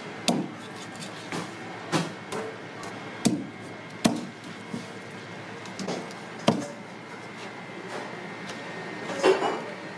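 A large knife chopping and striking through monkfish on a round wooden chopping block: irregular sharp knocks, about ten of them, the loudest about six and a half seconds in.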